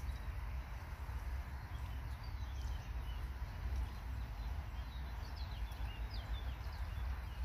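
Small birds chirping faintly in short, scattered calls, more of them in the second half, over a steady low rumble of wind on the microphone.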